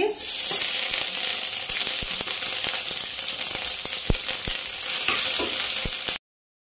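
Crushed ginger dropped into hot oil with chopped garlic and cumin in a nonstick kadai: a loud, steady sizzle that starts at once, with a steel spoon stirring and clicking against the pan now and then. The sizzle cuts off suddenly about six seconds in.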